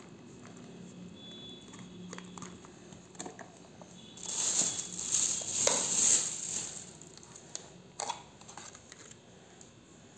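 Plastic carry bag and takeaway packaging crinkling loudly for about three seconds, starting some four seconds in, after quieter handling as biryani is tipped from a cardboard box onto a steel plate. A couple of sharp clicks near the end as the lid comes off a plastic raita cup.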